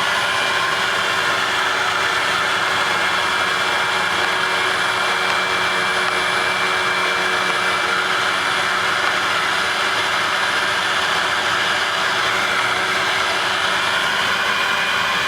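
Vacuum cleaner motor running steadily, an even rushing noise with a constant whine.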